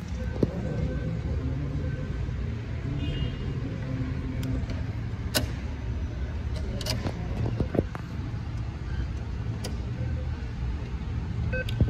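ATM being operated: a few sharp clicks and two short electronic beeps, one about three seconds in and one near the end, over a steady low rumble.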